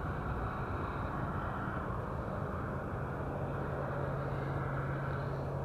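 Steady low mechanical rumble, with a low steady hum that comes in about halfway through.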